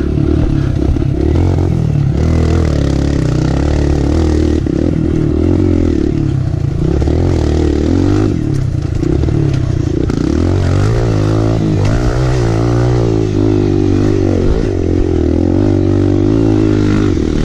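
Kawasaki KLX 140L dirt bike's single-cylinder four-stroke engine under way on a rough trail, its revs rising and falling repeatedly with the throttle and gear changes.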